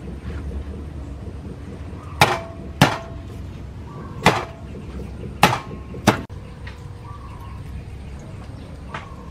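A cleaver smashing whole garlic cloves against a wooden chopping board: five sharp whacks over about four seconds, the first two close together, and one faint knock near the end.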